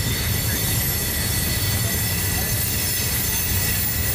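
Freight train gondola cars rolling past on a sharp curve: a steady rumble of wheels on rail with a constant high wheel squeal over it.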